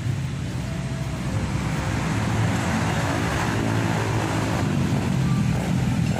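Road traffic: a steady low rumble, with a motor vehicle's engine swelling and fading through the middle.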